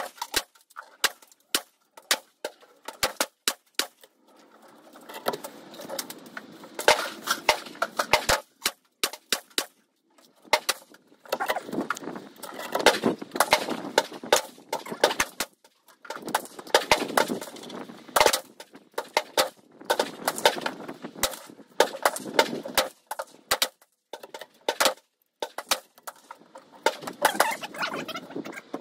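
Rifle fire at a shooting range: many sharp cracks at irregular intervals, some coming in quick runs.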